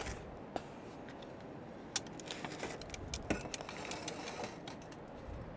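Scattered light clinks and taps of mud crab pieces and a serving utensil against a pot and plate as chilli mud crab is dished up, over a faint steady hiss.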